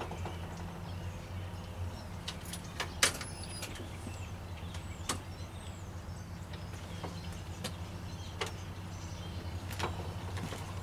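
Steady low hum of the Jeep Wrangler YJ idling, with scattered, irregular clicks and taps. No regular flasher ticking: the turn signal is not flashing because the stock flasher does not work with the low-resistance LED bulbs.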